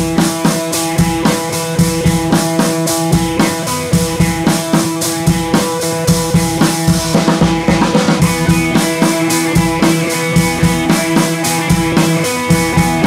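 Background music with a steady drum beat over sustained instrument notes.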